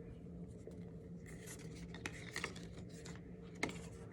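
Quiet room tone with a steady low hum, broken by a few soft rustles and scratches and a single short click near the end.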